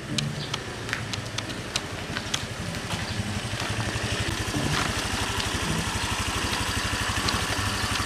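Small single-cylinder engine of a Honda automatic scooter running steadily, growing a little louder over the first few seconds and then holding.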